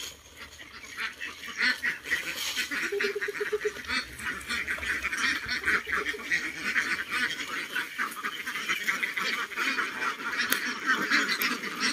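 A large flock of Philippine native ducks (itik) quacking in a dense, continuous chorus as they crowd in to be fed, getting louder about two seconds in.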